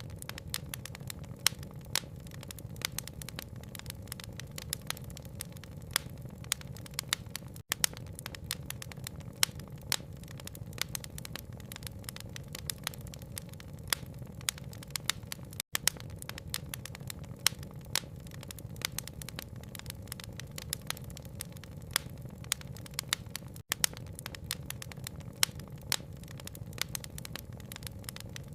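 Wood fire crackling with frequent sharp pops over a steady low rain rumble. The sound cuts out for an instant about every eight seconds, where the recording loops.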